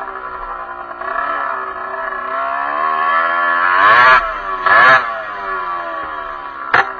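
Derbi enduro motorcycle engine revving up and down as it rides. The pitch climbs to a peak about four seconds in, there is a loud burst of revs about a second later, and a brief sharp burst comes near the end.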